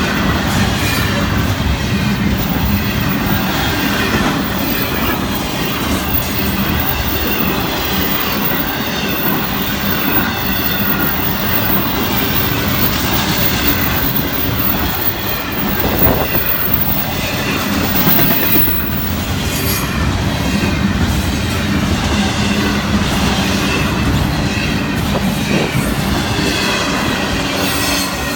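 Florida East Coast Railway double-stack container well cars rolling past close by: steel wheels clacking over the rail joints and cars rattling, with a wavering high wheel squeal over the top.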